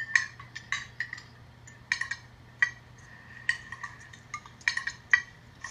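Knife and fork clinking against dinner plates: a run of about a dozen irregular, sharp clinks, each with a short ring.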